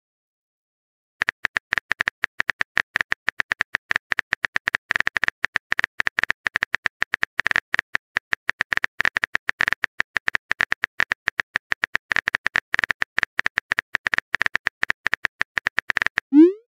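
Phone keyboard typing sound effect: a rapid, irregular stream of short key clicks as a text message is typed out. Near the end, a short rising swoosh as the message is sent.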